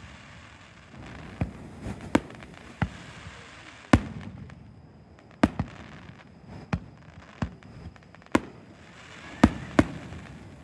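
Fireworks bursting overhead: about a dozen sharp bangs at irregular intervals, some in quick pairs, with a low rumble between them.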